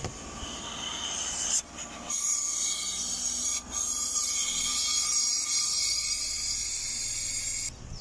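Air hissing as the running engine sucks it in through the open end of an emptied cleaner-feed hose on its vacuum line. The hiss breaks off briefly twice and stops suddenly near the end.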